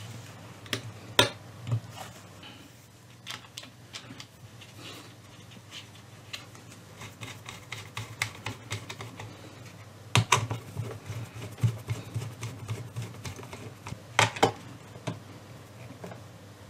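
Small metallic clicks and taps of a nut driver and bolts as a speaker is bolted to its backboard, with a run of quick clicks about ten seconds in and another around fourteen seconds.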